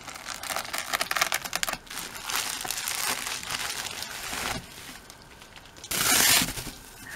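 Plastic bubble mailer being slit with a utility knife and the bubble-wrapped contents pulled out: rapid crackling at first, then plastic and bubble wrap crinkling and rustling, with a brief louder rip about six seconds in as the wrap is pulled open.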